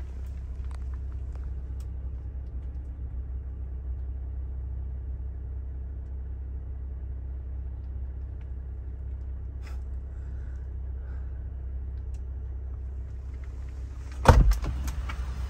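Steady low hum of a Jeep Wrangler idling, heard from inside its cabin. Near the end, a loud clunk of the door being opened.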